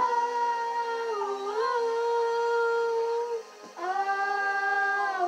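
A boy singing long held vowel notes without words, with a short waver in pitch about a second in. After a quick breath just past three seconds he holds a second, lower note.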